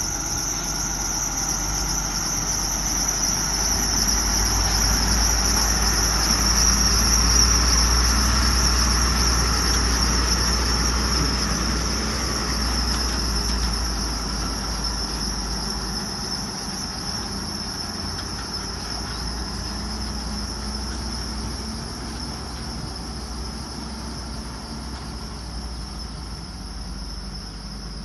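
Heavy flatbed truck driving slowly past on a dirt road, its diesel engine rumble growing louder to a peak about eight seconds in and then fading as it moves away, over a steady high-pitched insect chorus.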